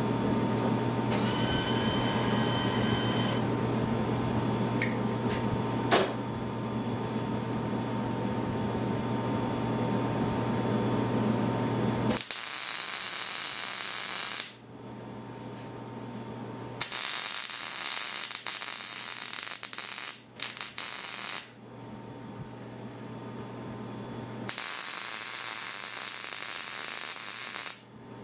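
MIG welder tack-welding a steel strip onto a snowblower's steel scraper blade: after a steady hum, several bursts of arc hiss and crackle, each lasting one to three seconds, with short pauses between the tacks.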